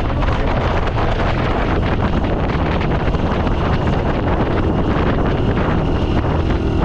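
Wind buffeting the microphone of a moving motorcycle, with the bike's small engine running steadily underneath at cruising speed.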